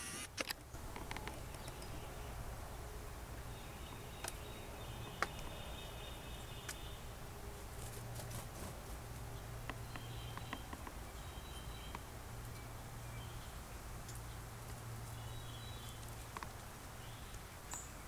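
Faint outdoor ambience: a low steady hum, with short faint high-pitched calls now and then and a few small clicks.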